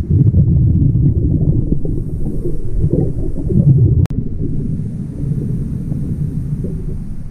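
Muffled, uneven low rumble of water moving around a camera filmed underwater, with almost nothing above the low range. A click and a brief dropout about four seconds in.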